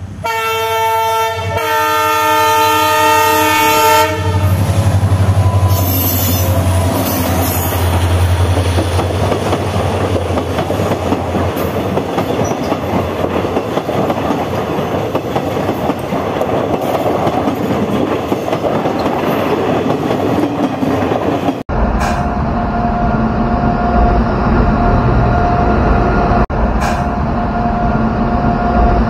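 A train horn sounds in the first few seconds as the train approaches. Then passenger coaches rush past close by, their wheels clattering over the rail joints. After a sudden cut about 22 seconds in, a diesel locomotive hauling a freight train runs past with a deep, steady engine rumble.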